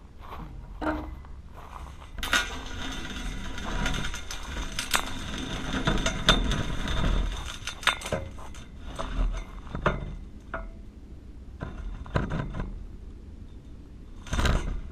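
Knocks, clinks and rattles of a 20-foot pole being raised with a GoPro mounted on top, the handling noise carried straight to the camera. The rattling is densest for several seconds after about two seconds in, thins to scattered knocks, and ends with a louder knock. A low rumble runs underneath.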